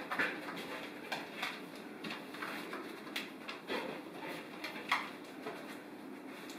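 Dog searching for hidden food: a few short sniffs and soft scattered taps of paws and footsteps on a wooden floor, at irregular intervals.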